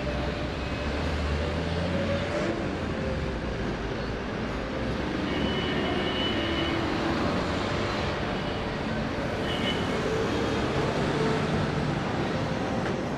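Steady outdoor street ambience: a continuous wash of road traffic noise, with faint scattered sounds from the café, including a couple of brief high tones.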